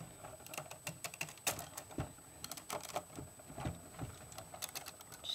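Irregular clicks and clacks of plastic Lego bricks as hands grip and shift sections of a brick-built model.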